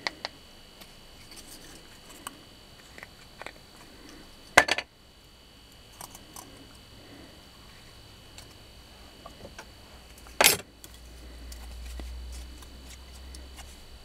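Handling noise from a small motor armature and its paper slot insulators: scattered light clicks and clinks, with two short, louder rustling bursts about four and a half and ten and a half seconds in. A low rumble comes in near the end.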